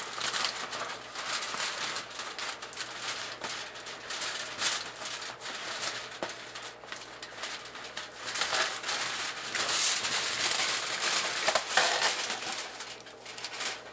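Aluminum foil crinkling and crackling as fingers press and smooth it down over a camera, a dense run of small crackles that gets busier past the middle.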